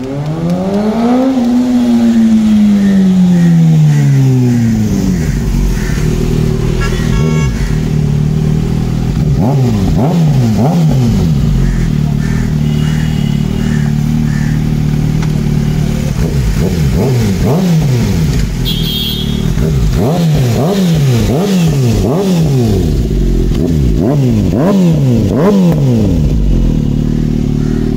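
Kawasaki ZX-6R's inline-four passing by at speed in the first few seconds, its pitch falling away, then idling while the throttle is blipped again and again in short revs, roughly one a second, with a steadier stretch of idle in the middle.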